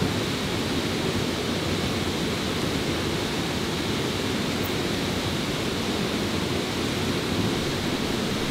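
Steady rushing ambient noise, even and unbroken, with no distinct events.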